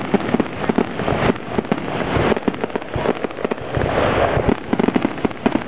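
Fireworks finale barrage: a rapid, continuous string of shell bursts and bangs over dense crackling.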